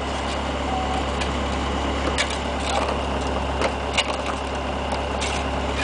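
Diesel engine of a 430 ZHS mini excavator running steadily at idle, with a few sharp clicks or knocks over it.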